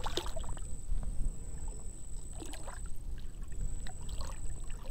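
A few short water splashes as a redfish, held at the surface by a fish grip beside a kayak, flicks its body and tail while being released, over a low rumble.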